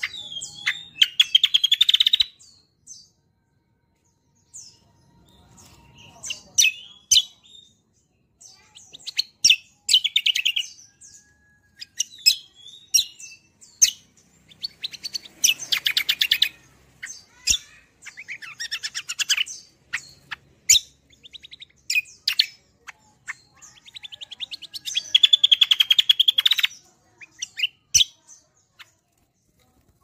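A caged kecial kombo (cucak kombo) songbird singing in repeated bursts of fast, rolling trills mixed with sharp chirps, with short pauses between phrases; the longest and loudest rolls come near the start, about halfway through and near the end.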